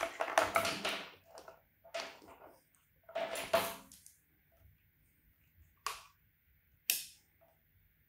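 Handling noise as a digital multimeter and its test leads are picked up and set up: rattling and knocking in the first four seconds, then two sharp clicks about six and seven seconds in.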